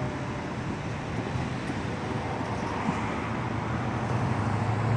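Road traffic at a railroad crossing: car engines and road noise making a steady hum that grows louder near the end.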